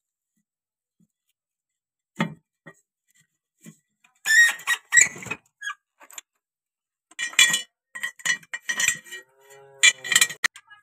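Metal clinks and rattles of steel bolts being dropped into and turned in the cast-iron gearbox top cover of a Mahindra Arjun 555 DI tractor with a spanner. There is a single knock about two seconds in, then two bursts of quick clinking, one about four seconds in and a longer one in the last few seconds.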